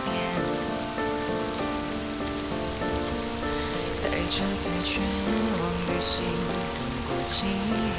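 Steady heavy rain falling, with a slow song with held notes playing over it.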